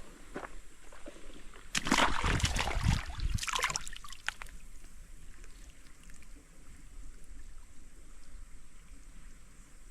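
Footsteps wading through a shallow creek, splashing water, loudest in a stretch of splashes about two to four seconds in, then quieter water sounds.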